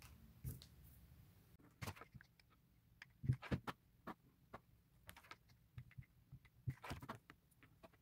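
Faint, scattered light taps and rustles from hands handling and rolling a black leather fringe strip into a tassel.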